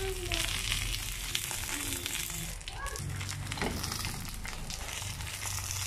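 Banana-leaf-wrapped mackerel parcel sizzling in coconut oil on a hot cast-iron tawa, with a steady frying hiss and scattered small pops and crackles.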